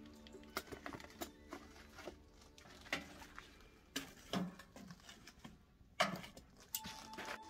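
Long metal fire tongs knocking and scraping against the metal stove and the burning fuel as it is stirred in the firebox: a string of irregular sharp clanks and knocks.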